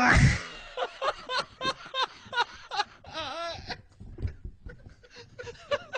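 Men laughing in short, quick bursts, about three a second, after a loud burst of sound right at the start; the laughter trails off into quieter scattered chuckles in the second half.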